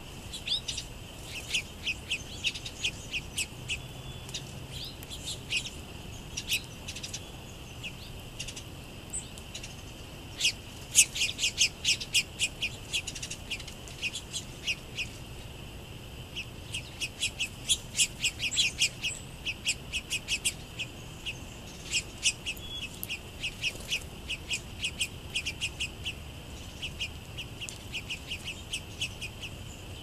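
Small songbirds giving quick runs of short, high chip notes throughout, over a steady high-pitched insect trill.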